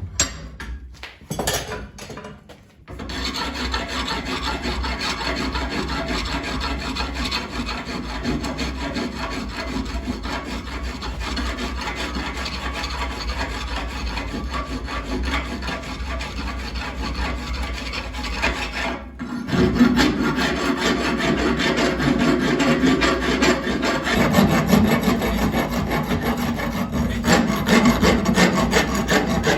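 Steady abrasive rubbing on the forged steel hammer eye drift, as it is worked down after forging. It stops briefly about two-thirds of the way through and starts again louder.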